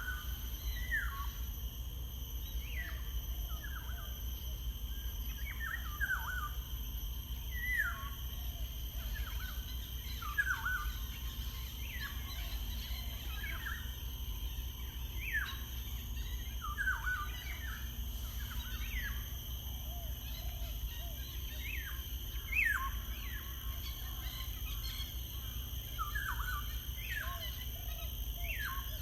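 Wild birds calling in natural ambience: short, sharply falling notes repeated every second or two, over a steady high-pitched background hum and a low rumble.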